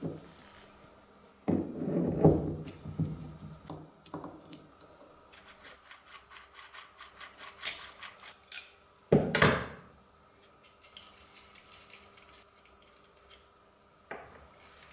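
Metal bicycle hub parts and a cone wrench being worked by hand on a wooden bench: scraping, knocking and small clicks of steel on steel and on wood. There is a louder cluster of scrapes about two seconds in, a run of quick small ticks after that, and a sharp loud scrape near the ten-second mark.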